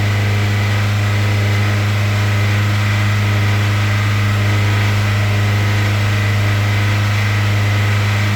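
Hyundai Sonata engine held at a steady high speed of around 3000 rpm, running at a constant pitch with no change in revs. The revving is the owner's attempt to cure a ticking noise the engine makes at idle.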